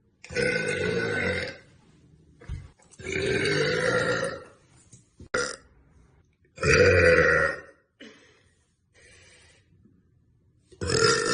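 A young woman burping four times, each a long, deep belch of about a second or more, the last starting near the end. A short click comes between the second and third.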